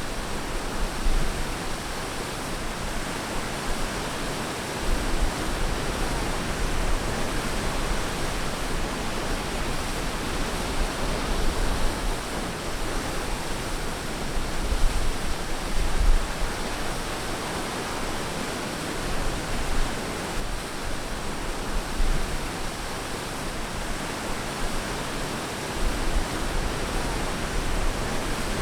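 Surf on a beach: waves breaking and washing in a continuous, even rushing noise, with irregular low rumbles underneath.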